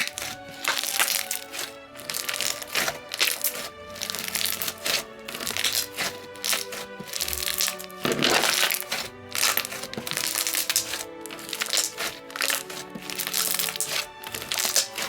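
Thick clear fishbowl slime being played with, giving frequent sharp pops and crackles over background music with sustained notes.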